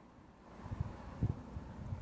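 Low, irregular rustling and rubbing of hands working knitting needles and yarn close to the microphone, beginning about half a second in, with a soft thump a little past a second in.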